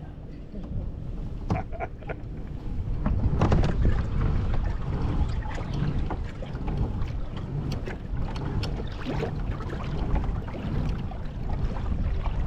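Kayak moving on the water: water lapping and splashing against the hull in irregular small slaps, with wind buffeting the camera microphone.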